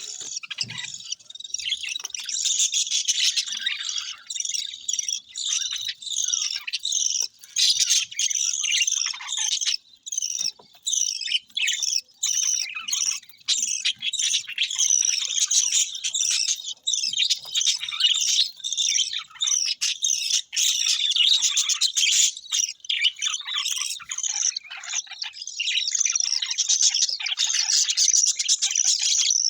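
A group of budgerigars chattering: many overlapping quick chirps and warbles going on without a break.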